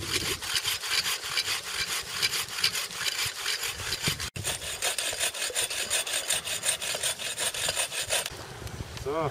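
Folding buck saw cutting through birch branches, a steady fast rasp of back-and-forth strokes, briefly broken about four seconds in.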